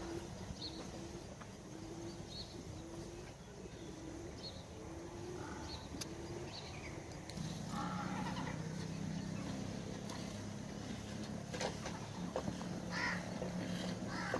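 Crows cawing now and then, with short calls repeating through the first half. About halfway in, a steady low hum starts and runs for several seconds.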